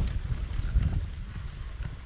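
Wind buffeting the microphone while riding a touring bicycle over a rough gravel road, with a few sharp clicks and rattles from the tyres and bike on the loose surface.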